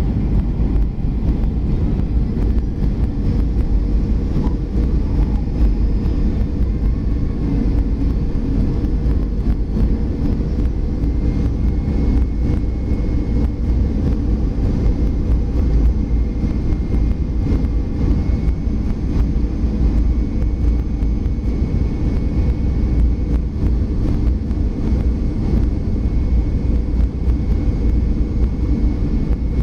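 Cabin noise inside a Boeing 737-400 descending on approach: a loud, steady low rumble of its CFM56 engines and rushing air. A faint high steady whine joins it about twelve seconds in.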